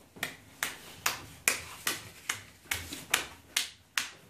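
A steady series of about ten sharp clicks or taps, a little over two a second, from a small black airsoft part being worked in the hands.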